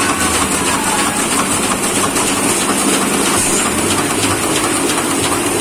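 Heidelberg sheet-fed offset printing press running: a steady, rapid mechanical clatter of its rollers and sheet transport over a constant high hiss.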